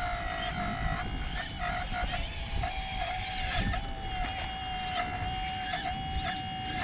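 RC excavator's electric hydraulic pump whining steadily, dipping briefly several times as the controls are worked. Short high rising chirps sound over it again and again.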